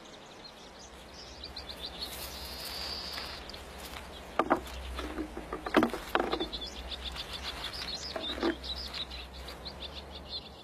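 Outdoor natural ambience with rapid high-pitched chirping repeated many times a second, over a low steady rumble, and a few louder sharp clicks in the middle.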